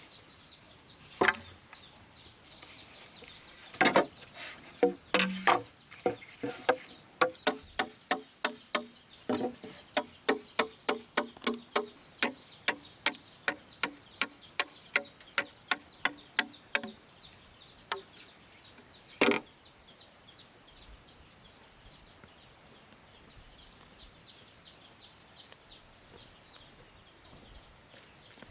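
Rhythmic chopping, about two sharp strikes a second for around ten seconds, with a few scattered knocks before it and one loud knock after it. A faint steady high-pitched tone runs underneath.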